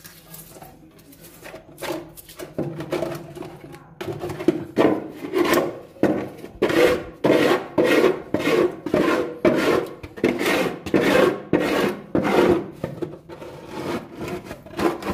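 Hand scrubbing with a wet sponge scrub pad on an oily engine-bay floor, a rubbing and rasping stroke back and forth. The strokes are light and scattered at first, then from about four seconds in they come steady and vigorous, about two a second.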